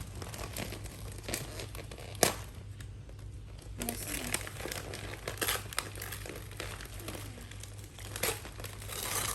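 Gift wrapping being torn off a birthday present by hand: irregular crinkling and crumpling with bits of tearing, and a sharp snap about two seconds in.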